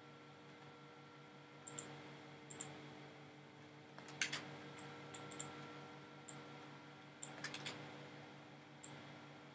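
Faint computer mouse clicks, about a dozen scattered through, some in quick pairs, the loudest about four seconds in, over a steady low hum.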